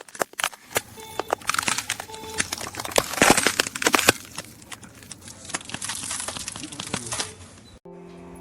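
Rapid, irregular clicks and crackling. Music starts near the end.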